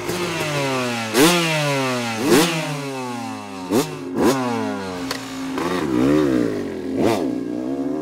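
Motocross dirt bike engine being revved in quick throttle blips, about six times, each rev jumping up sharply and then dropping back slowly toward idle.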